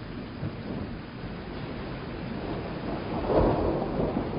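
A low rumble with a steady hiss, swelling to its loudest about three seconds in.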